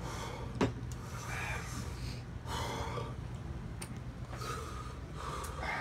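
Several men breathing hard through their mouths, with sharp breaths, puffs and sniffs, as they try to cool the burn of very hot sauce on their tongues and lips. A couple of short clicks sound, about half a second in and again about two seconds in.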